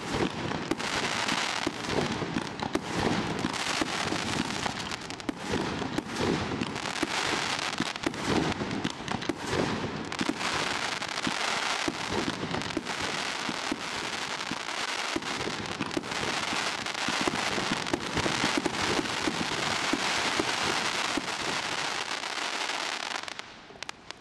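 A 145-shot mine and barrage firework cake firing continuously: a dense, unbroken crackle from crackling stars over a steady run of shots. It dies away sharply near the end.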